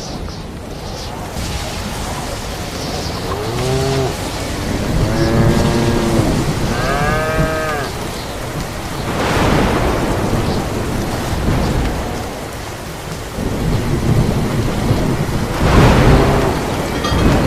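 Cattle mooing: several drawn-out calls that rise and fall in pitch, with two louder rushing, rumbling surges of noise, one about halfway through and one near the end.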